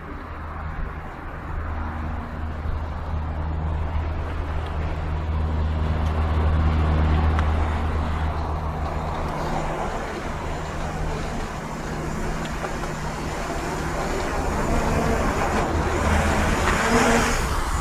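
Road traffic: a motor vehicle's low engine hum that swells about six to eight seconds in, eases off, then builds again.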